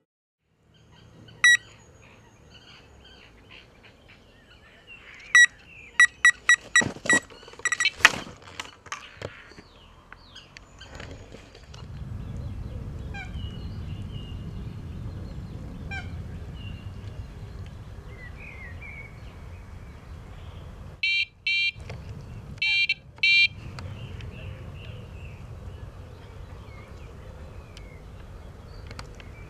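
Electronic carp-fishing bite alarms on the rods beeping in short bursts: a single beep, then a quick run of about six, then another cluster near the end. The beeps signal line moving over the alarms, a bite indication.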